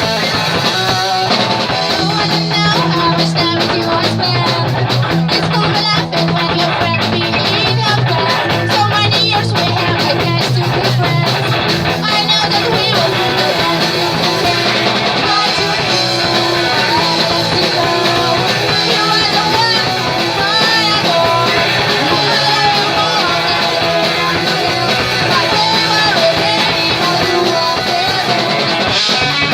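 Punk rock band playing live: distorted electric guitars, bass and drum kit, with some singing.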